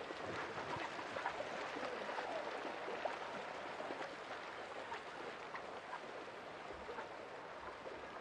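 Sprint racing kayak (K1) paddles stroking hard, their blades splashing in and out of the water over a steady wash of water, with scattered small splashes.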